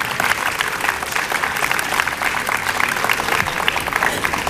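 Applause from a small crowd, many separate hand claps in a steady patter.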